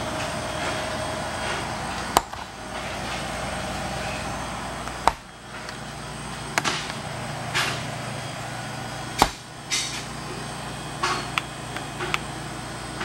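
Sharp knocks and clicks as the stainless steel doors of a commercial refrigerated prep table are handled, over a steady background hum; the loudest knocks come about two, five and nine seconds in.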